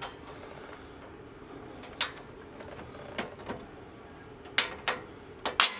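Scattered sharp clicks and knocks of the metal grill guard being shifted and worked into place against the tractor's frame, the loudest pair near the end.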